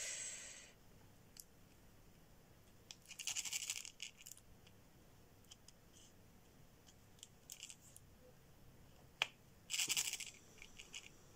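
Multi-placer diamond-painting pen scraping through a tray of plastic drills to pick them up, in three short scratchy bursts: at the start, about three seconds in and about ten seconds in. Small clicks of the pen setting drills on the canvas come in between.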